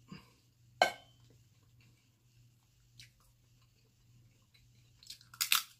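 Cooked Dungeness crab shell being cracked and picked apart by hand: a sharp crack about a second in, a few faint shell clicks, then a louder crunching crack near the end. A steady low hum runs underneath.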